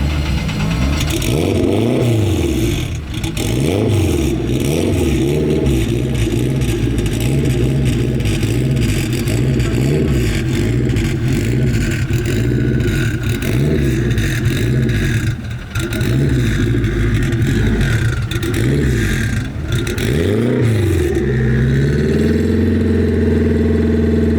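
A car engine being revved again and again, its pitch rising and falling every second or two. Near the end it settles and holds steady at a raised engine speed.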